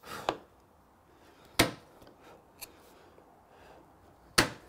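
Mallet striking a bench chisel to chop out dovetail waste in wood: four sharp knocks at uneven gaps of a second or more, one of them light.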